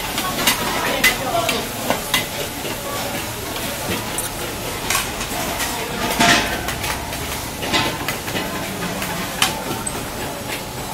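A metal spatula scrapes and clanks against a steel wok over a steady sizzle as Hokkien mee noodles are stir-fried, with the sharpest scrape about six seconds in.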